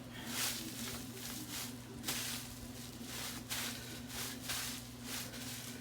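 Fabric rustling and brushing close to the microphone as a do-rag is pulled on and tied over the head, in short irregular swishes over a steady low hum.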